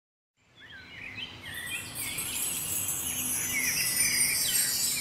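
Birds chirping and twittering over a steady high hiss, fading in from silence about half a second in and growing louder over the next second or so.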